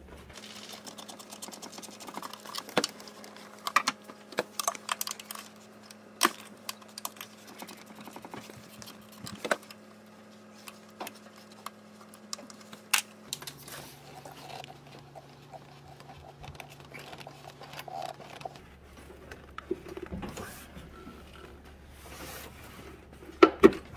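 Socket ratchet clicking in short runs while the bolts holding a manifold tuning valve are loosened, mixed with small taps of tools on metal and plastic. There are two sharp knocks near the end.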